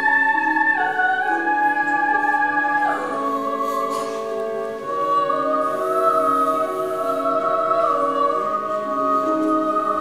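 Slow, lyrical music for a stage performance. A high held melody line steps down twice, then glides upward around the middle, over sustained lower notes.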